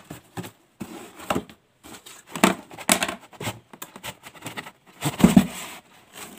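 A cardboard box being handled and tipped, with irregular scraping, rustling and knocking as the tripod in its bag slides out of it, and one heavier thump about five seconds in.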